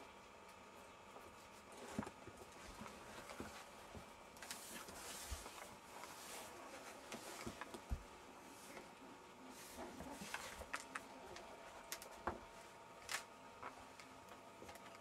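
Faint, scattered clicks, taps and scuffles of Jack Russell Terrier puppies' paws and claws moving about on a wooden floor.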